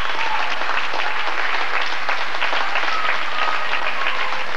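Crowd applauding in a gymnasium: dense, steady clapping.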